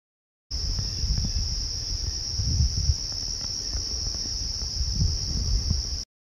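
Insects, crickets or similar, trilling in one steady high-pitched drone, with a low uneven rumble underneath; the sound starts and cuts off abruptly.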